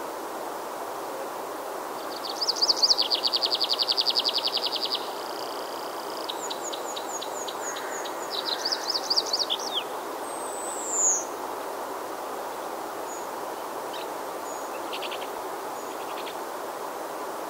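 Songbirds singing over a steady background hiss. A fast, loud trill of rapidly repeated notes comes a couple of seconds in. A run of thin high notes and a second trill follow, then a single high whistle sliding down in pitch. Fainter short chirps come near the end.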